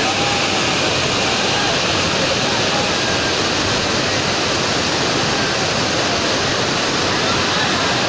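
Large waterfall crashing onto rocks close by: a loud, steady rush of falling water.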